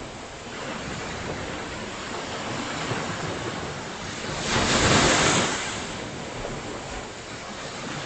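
Ocean surf: waves washing ashore in a steady hiss, with one wave breaking louder about halfway through.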